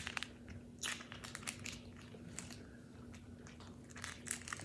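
Close-miked eating and lobster-shell handling: scattered sharp clicks and short crunches as the shell is picked at and the meat is chewed, over a faint steady hum.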